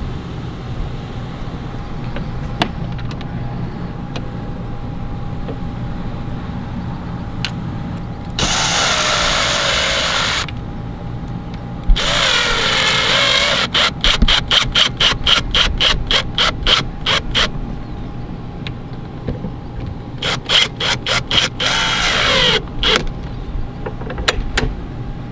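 Power drill driving screws in short runs: two steady bursts of a couple of seconds each, whose whine shifts in pitch with speed, then rapid stuttering pulses, and another stuttering run near the end. A steady hum lies under it throughout.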